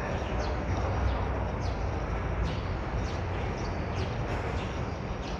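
Steady background din of a busy public walkway: a low rumble and hiss, with short high ticks or chirps scattered through it.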